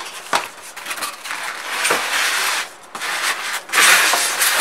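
Cardboard box flaps and foam packing sheets rubbing and scraping as a radiator is unpacked, with longer, louder scrapes about two seconds in and again near the end.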